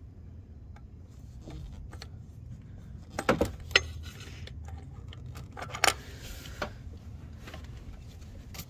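Metal clinks and rattles of a swivel spark plug socket and extension being fed into a rear spark plug hole of a Hemi V8 to start the plug back in. A few sharp clinks come a little past the middle, over a steady low rumble.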